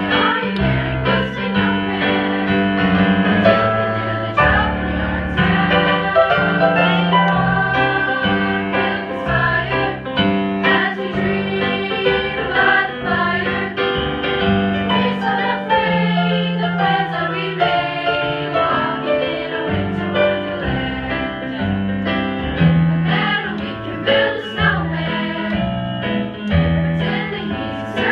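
Music: a choir singing with piano accompaniment, gospel-style, with sustained bass notes underneath.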